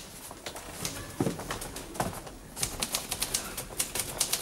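Typewriter being typed on, the keys clattering in quick runs: a few strokes at first, then a fast, dense stretch of typing from a little past the middle.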